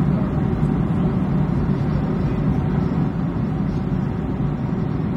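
Steady low rumble of a jet airliner's engines and rushing air, heard from inside the cabin in flight.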